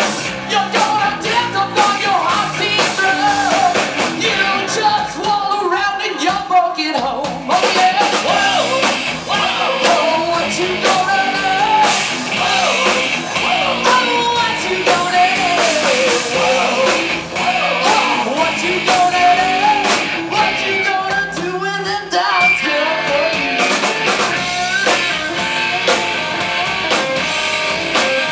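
Live rock band: a woman singing lead over electric guitars and a drum kit.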